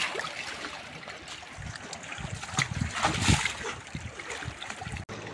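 Seawater lapping and sloshing against shoreline rocks, with a run of louder sloshes in the middle.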